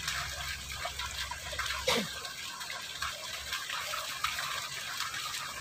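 Water running steadily along a narrow concrete irrigation ditch, with a brief louder sound about two seconds in.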